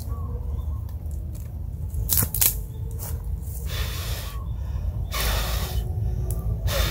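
A person blowing on a small smouldering wood fire in three breathy gusts of about half a second each, to coax it into flame. A few sharp snaps of twigs come about two seconds in, over a steady low rumble of wind on the microphone.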